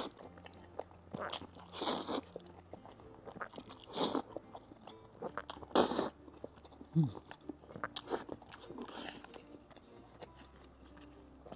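Close-up eating sounds of someone chewing a mouthful of curry beef Buldak noodles, with short wet mouth noises every second or two.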